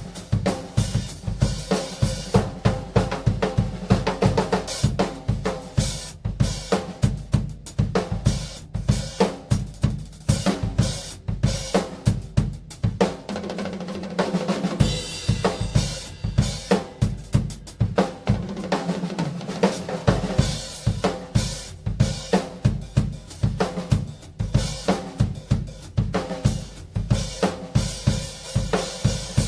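Tama Starclassic Bubinga Elite drum kit being played continuously: bass drum, snare and cymbals in a dense stream of strikes. The bass drum drops out briefly about halfway through, leaving snare and cymbals.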